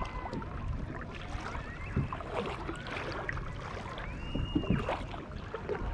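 Small waves lapping and slapping against a kayak's plastic hull, with many little irregular splashes and clicks of water.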